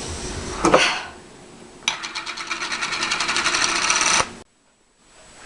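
A small machine clattering rapidly, about ten clicks a second, growing louder for about two seconds and then cut off suddenly.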